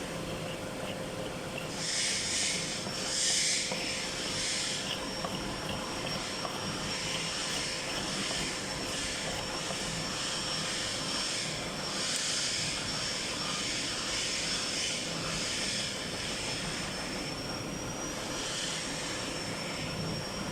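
Factory machinery running steadily, a hiss and hum with a high whine, with louder bursts of hissing twice: about two seconds in and again around twelve seconds in.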